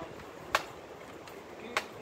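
Pellet gun firing twice: two short, sharp snaps a little over a second apart.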